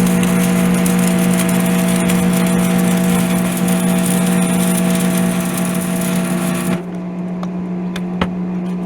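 Electric arc welding on a cracked cast iron wheel: a steady crackling arc over the welder's electrical hum. The arc stops about seven seconds in while the hum carries on, with a single sharp click near the end.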